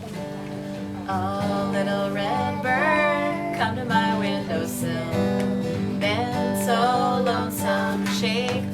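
Acoustic guitar strumming a country-folk song intro, with a gliding melody line played or hummed over it.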